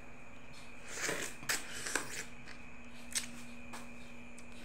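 Biting into and chewing a piece of yellow-fleshed watermelon close to the microphone: a wet, crunchy bite about a second in, a couple more chewing crunches, then a few short sharp clicks.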